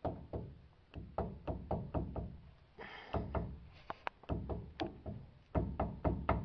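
Pinion flange of a 1995 Ford Ranger's 7.5-inch rear differential being rocked back and forth by hand, clunking with sharp metal knocks in quick runs of several a second. The play shows wear in the pinion, which the mechanic takes for loose pinion bearings.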